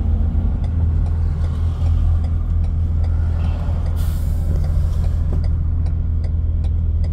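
Semi-truck's diesel engine running low and steady as the truck creeps along at slow speed, with a short hiss of released brake air about four seconds in. A faint, evenly spaced ticking runs under it.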